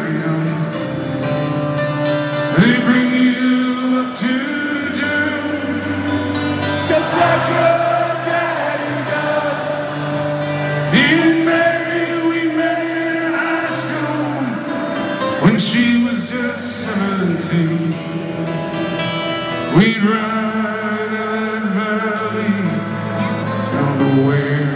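Live band music amplified through a stadium PA: a male singer holds long notes into a handheld microphone over guitar and band.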